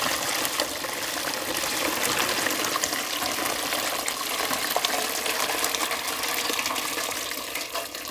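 Hot salt brine being poured onto a plate laid over cucumbers packed in a tub: a steady splashing gush of liquid.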